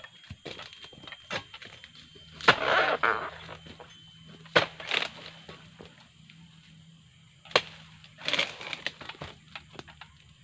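Sharp cracks and knocks, a few seconds apart, as a pole-mounted harvesting chisel is jabbed into the stalk of a ripe oil palm fruit bunch, with crackling of dry frond bases. The loudest crack comes about two and a half seconds in, and near the end there is a rustling crash as the cut bunch drops.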